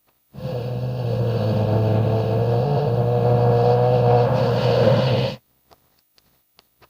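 Monster creature sound effect for a demon horse: one long, low call over a steady hum, held for about five seconds and cutting off suddenly.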